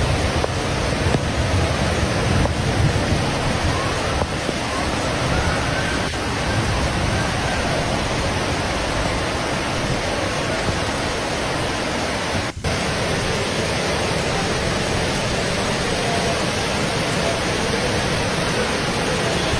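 Steady heavy rain, an even hiss with some low rumble in the first few seconds. It cuts out for an instant about twelve and a half seconds in.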